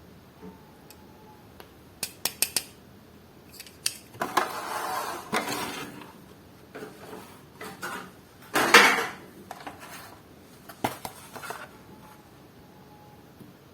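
Hands opening and handling toy car packaging: a few sharp clicks and taps, with two longer spells of crinkling and scraping of plastic and card, the loudest about nine seconds in.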